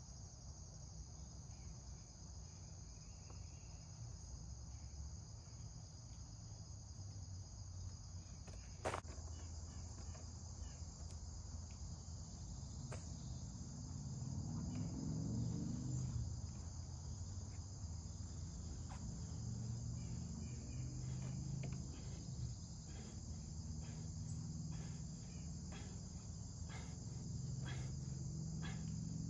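Steady high-pitched chorus of insects, crickets, with a single sharp click about nine seconds in and a low hum that swells about halfway through.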